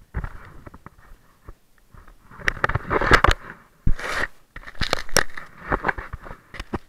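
Handling noise from an action camera in its housing: irregular knocks, clicks and scraping crackles as the camera is moved and turned, loudest around three seconds in and again around five seconds in.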